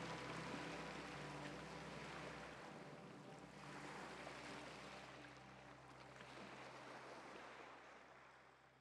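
Small waves washing onto a pebble beach, a faint hiss that swells and recedes and fades away near the end.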